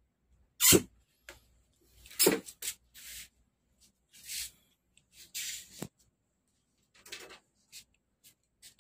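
Handling noise from a curved LED TV panel and its frame edge being worked by hand: two louder knocks about a second in and two seconds in, then short scrapes and rubs and a sharp click.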